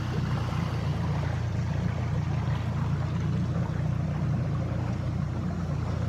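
Mercury outboard motor on a small skiff running steadily at cruising speed, a low even hum with a faint hiss of water and air over it.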